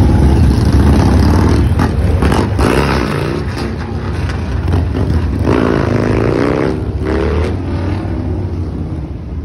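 Motorcycle engines running with a deep, steady rumble as bikes ride down the street, one revving up and back down about halfway through.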